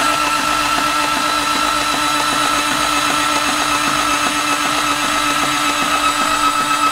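Toyota 2JZ inline-six being cranked over on its starter with the cam covers off to push oil up to the cylinder head: a steady starter whine with evenly spaced pulses as the engine turns over.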